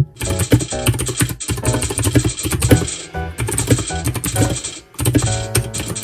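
Fast typing on a Royal Kludge RK61 wireless mechanical keyboard: a rapid, continuous clatter of keystrokes, with a few brief pauses. Background music plays under it.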